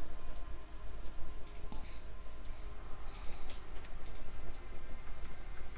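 Irregular computer mouse clicks, a click every half second or so, over a steady low hum.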